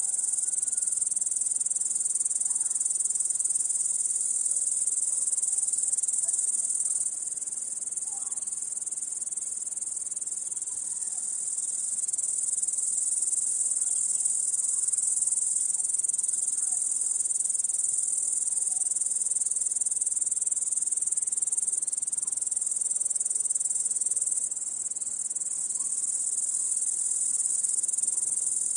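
Dense chorus of crickets, a steady high-pitched chirring that dips slightly in loudness about seven seconds in and again near the end.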